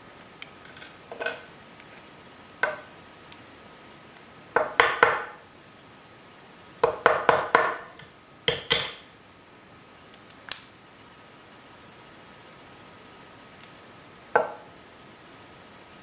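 Metal parts of a Fichet 484 H switch lock cylinder clicking and clinking as they are handled and taken apart. The clinks come in short clusters with pauses between them, the loudest about five seconds in and again about seven to eight seconds in.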